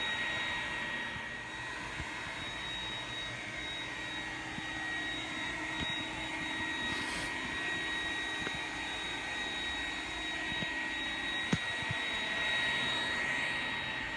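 iRobot Roomba 980 robot vacuum running as it cleans a hardwood floor: a steady motor and fan hum with a high, constant whine, a few light clicks, and one sharp knock about eleven and a half seconds in.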